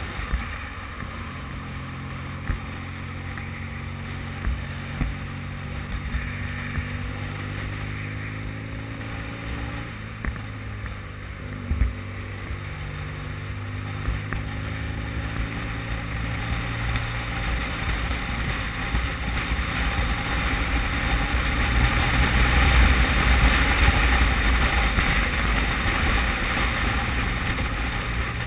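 Motorcycle engine running on the move, its pitch shifting slightly as the revs change, under wind and wet-road tyre noise that grows louder in the second half. A few short knocks are heard.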